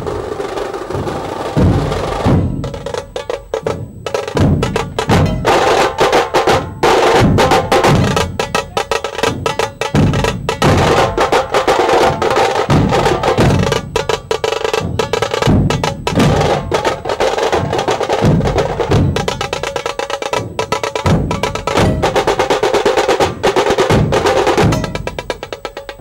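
Dhol-tasha drum ensemble playing: deep dhol strokes about once a second under rapid, crackling tasha stick rolls that thicken about two seconds in.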